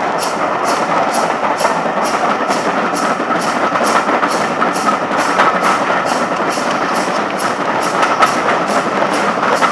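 Steam locomotive working steadily ahead of the train, its exhaust beating at about three to four beats a second over the rumble of the coach wheels on the rails, heard through an open carriage window.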